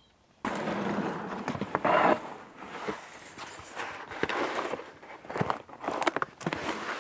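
Rustling and scraping on gravel with scattered light knocks, as the loose underbody panel of an RV is handled and someone shifts about beneath the trailer. It starts suddenly about half a second in and is loudest about two seconds in.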